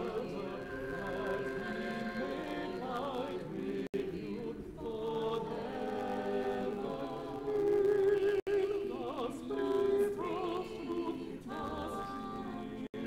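Church choir of adult and children's voices singing together under a conductor, with short pauses between phrases. The sound cuts out for an instant three times.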